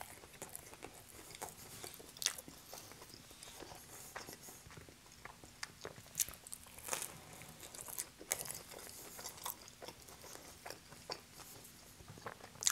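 Close-miked chewing and biting of pepperoni and cheese pizza, a run of irregular mouth clicks and crust bites.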